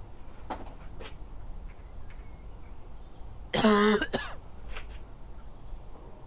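A person coughing: a loud, hoarse cough a little past halfway, followed at once by a shorter second one, over a low steady rumble.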